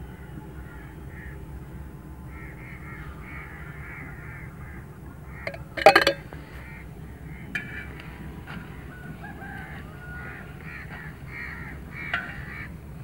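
Birds calling in a run of short, repeated calls. About six seconds in, a sharp metallic clatter as the steel spoon is put down on the steel plate, with a smaller knock near the end.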